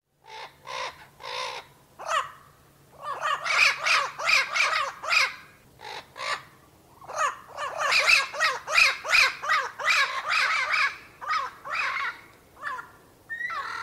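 Turquoise-fronted amazon parrot calling: a long series of short, rapid calls, about three a second, in two long runs with a few separate calls at the start and near the end.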